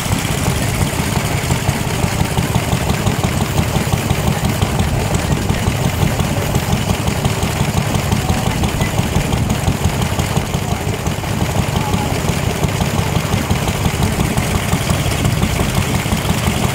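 Lister D type single-cylinder stationary engine running steadily with an even, rapid beat, belt-driving a small water pump.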